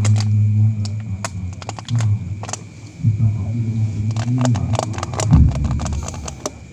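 Men's voices chanting dzikr in long, drawn-out held notes, in two phrases with a short break about two seconds in, over frequent clicks and crackle.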